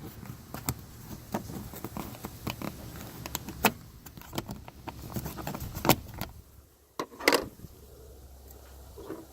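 Plastic interior trim being pried and handled with a small screwdriver: scattered clicks, knocks and rattling, with a louder scrape about seven seconds in.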